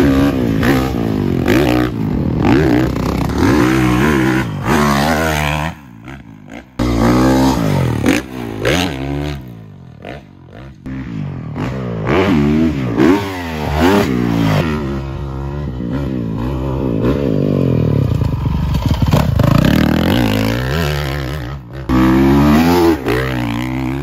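Dirt bike engine revving up and down as the rider accelerates and rides over the jumps, the pitch climbing and falling again and again. The sound drops out abruptly a few times, at about six, ten and twenty-two seconds in, where one clip cuts to the next.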